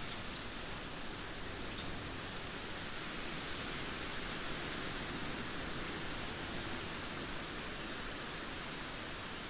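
Steady rain falling, an even hiss of drops with no single drop standing out.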